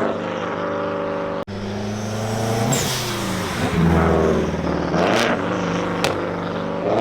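2015 Subaru WRX's turbocharged flat-four engine, fitted with Tomei equal-length headers and an aftermarket exhaust, revving and passing by. Its pitch climbs and falls several times across spliced takes, with an abrupt cut about a second and a half in.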